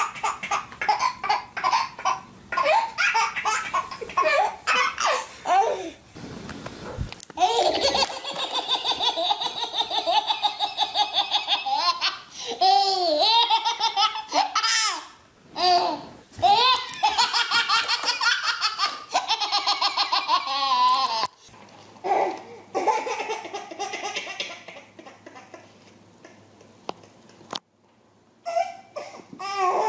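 Babies laughing hard, long runs of quick, breathy belly laughs and giggles, broken off by several sudden cuts.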